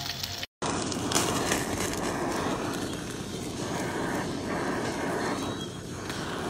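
Handheld butane kitchen torch running with a steady hiss as it sears a steak in a pan, after a brief dropout about half a second in.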